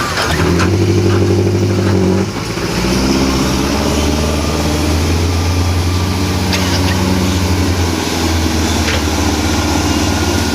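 Bulldozer's diesel engine running hard and steadily, dipping for a moment about two seconds in and then building back up, with a few light knocks over the top.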